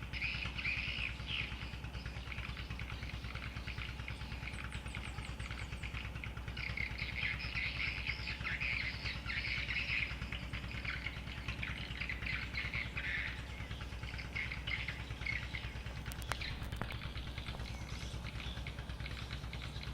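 Birds chirping continuously over a steady low rumble, with one sharp click about sixteen seconds in.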